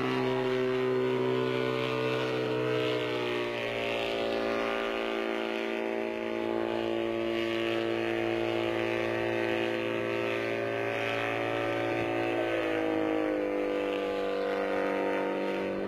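Small engine of a homemade single-seat helicopter running in flight, a steady buzzing note. Its pitch drops slightly a few seconds in, then rises and falls again about twelve seconds in.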